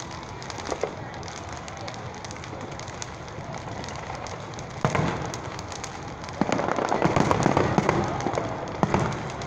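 Fireworks going off: a single bang about five seconds in, then a dense run of crackling bursts from about six and a half seconds, and another bang near the end.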